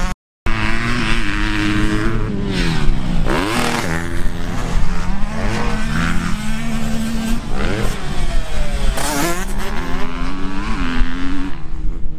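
Several motocross dirt bike engines revving as they ride the track, each pitch climbing then dropping at gear changes, with more than one bike heard at once. The sound cuts out completely for a moment just after the start.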